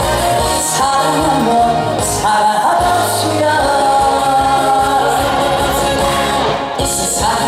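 Trot song's introduction playing at a live concert, with a held melody line and backing music.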